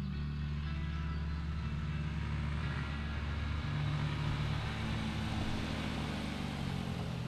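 Motorcycle engine running steadily at low speed as the bike rides along.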